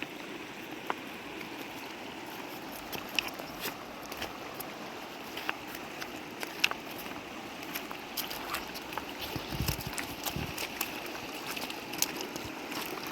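Running stream water with scattered sharp clicks and taps, and two low thuds about ten seconds in.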